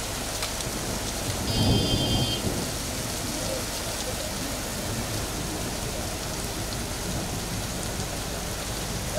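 Heavy rain pouring down on a street and pavement, a steady hiss. About two seconds in, a short low rumble swells and fades, and a brief high ringing tone sounds over it.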